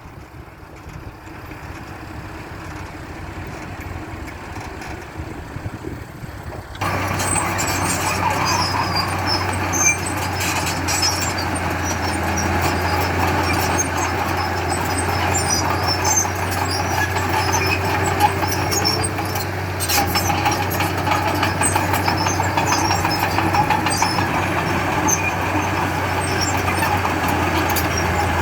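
Heavy diesel engine of earthmoving machinery, a bulldozer or dump truck, running under work. The engine noise builds for the first seven seconds, then turns abruptly louder into a steady low drone with scattered light clicks and rattles.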